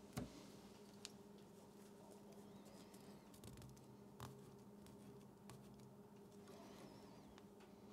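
Near silence: faint steady room hum with a few soft clicks from handling at the fly-tying vise, the loudest just after the start.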